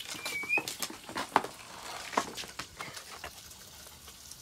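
A dog gives one short, high whine near the start, followed by scattered light clicks, taps and rustles.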